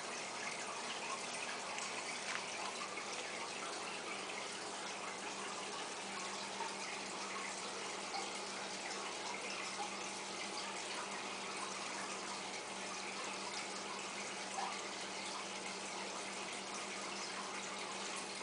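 Steady splashing and bubbling of aquarium water where the filter return and air bubbles break the surface, with a faint low hum underneath.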